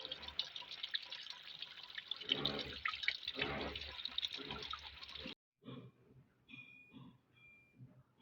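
Water running from a tap and splashing into a sink, with people talking over it. It cuts off suddenly about five seconds in, leaving faint knocks and a few short high squeaks.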